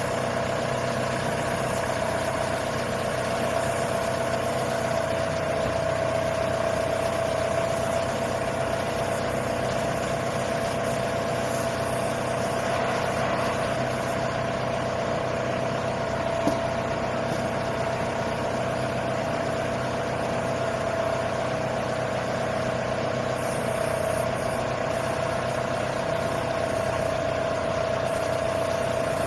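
Water well drilling rig's engine running steadily at an even speed, with a constant whine over the engine hum. A single short knock comes about halfway through.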